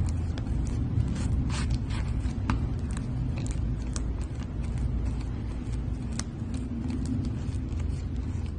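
Slime being handled and poked, making scattered small clicks and crackly pops over a steady low rumble. The pops come thickest in the first few seconds.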